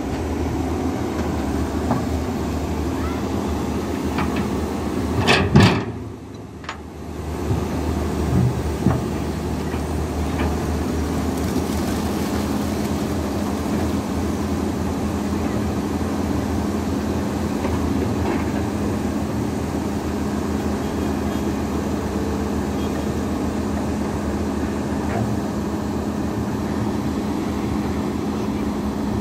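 Diesel engine of a CAT tracked excavator running steadily, with a brief sharp knock about five seconds in and a drop for about a second after it.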